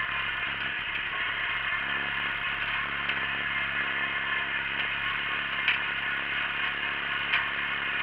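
Wheel Horse garden tractor engine running steadily while pulling a single-bottom moldboard plough through the soil, the rig clattering, with two sharp knocks in the second half.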